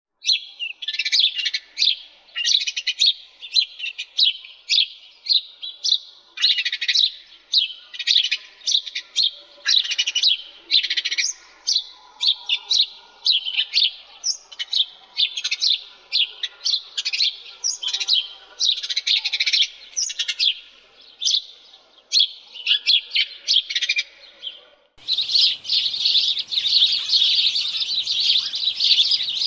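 Sparrows chirping: quick, high chirps several a second, in runs with short gaps. About 25 seconds in it turns into a denser, unbroken chorus of many chirping sparrows over a faint hiss.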